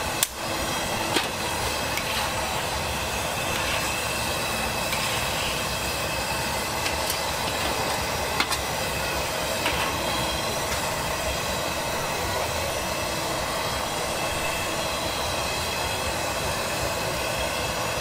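Steady hiss of a high-pressure gas burner heating a wok of frying oil, with a few light metal clicks.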